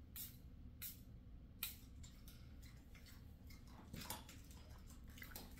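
A few faint, short hisses of a pump-spray bottle of face mist being spritzed, three close together in the first two seconds and one more near the end.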